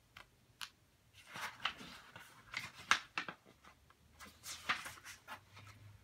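Pages of a thin paperback book rustling and crackling as it is handled and turned, in a quick run of crisp paper noises.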